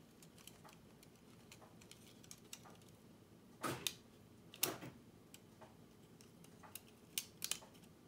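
Small clicks and ticks from the metal and plastic parts of a princess phone's rotary dial as a part is squeezed into the dial spring and turned until it seats. The louder clicks come at about four, five and seven seconds in.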